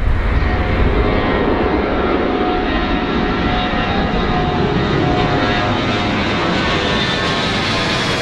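Jet engines of a four-engined Airbus A340 airliner at take-off power as it climbs out and passes overhead: a steady loud rush with a buzzing whine of fan tones. Near the end a high tone slides downward as the aircraft goes past.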